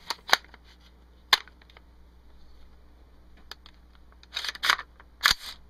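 Sharp metallic clicks and clacks of a Smith & Wesson M&P15 Sport AR-15 being loaded: a magazine seated in the magwell with a couple of loud clicks, then a quick run of clacks near the end as the charging handle is worked and the bolt snaps forward.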